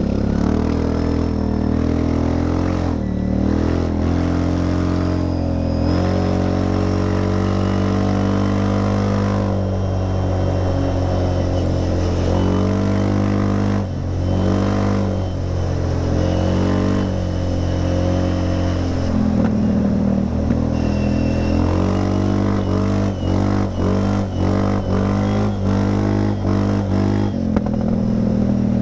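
Linhai 400S Dragonfly ATV engine running, its revs rising and falling repeatedly, with a quick run of short throttle blips near the end.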